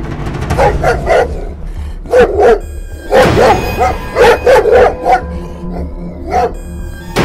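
A dog barking repeatedly in quick runs of two or three sharp barks, over background music.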